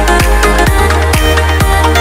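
Electronic dance music with a deep bass line and a steady kick beat, about two beats a second.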